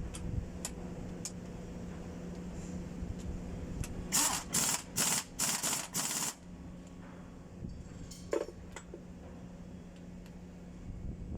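Tool work on a truck: a steady low hum with a run of short, loud clattering noises between about four and six seconds in.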